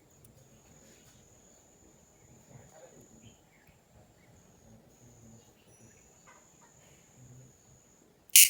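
A night insect calls with a steady, high-pitched, unbroken trill that drops out briefly a few times. Near the end a sudden loud burst of noise cuts in, the loudest sound here.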